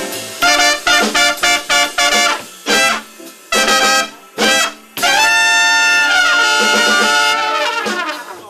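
Live band's horn section playing a run of short, punchy stabs, then a long held chord that falls off in pitch near the end.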